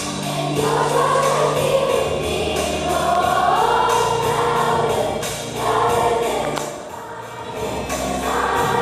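A fifth-grade children's choir singing in unison over an instrumental backing with steady low notes, with a brief lull between phrases about seven seconds in.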